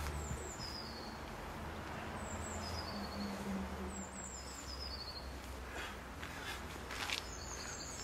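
A small songbird repeats a short, high, falling trill about five times, over a steady low rumble.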